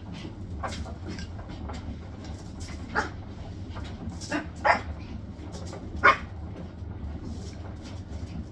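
Hisense washing machine spinning, a steady low hum, with about five short sharp sounds over it; the loudest comes about six seconds in.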